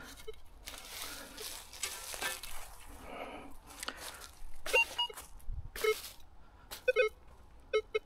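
Loose soil and dry leaves scraped and rustled back into a freshly dug hole, then a metal detector giving short electronic beeps, about one a second, as its coil is swept over the ground.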